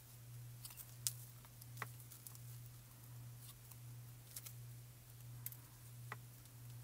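Faint, scattered ticks and crinkles of thin metallic mirror cardstock as small die-cut flourish bits are poked out with a needle-tipped pick tool, the sharpest click about a second in. A steady low hum runs underneath.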